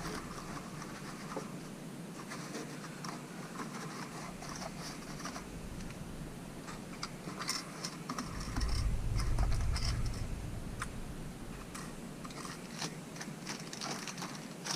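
Handling of plastic model locomotives and their boxes: scattered small clicks, taps and scrapes, with a low rumbling bump from about eight and a half to ten and a half seconds in.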